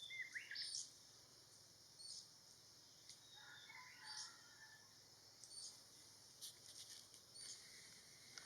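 Faint wild birds calling: short, high, rising chirps repeated every half second or so, with one longer, lower warbling call a few seconds in.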